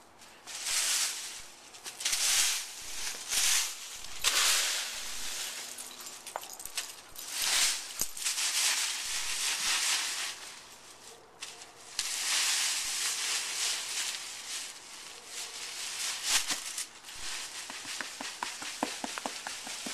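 Dry fallen leaves rustling and crunching in irregular bursts as a Siberian husky puppy bounds and dives through a leaf pile, with brief gaps between the bursts and small crackles near the end.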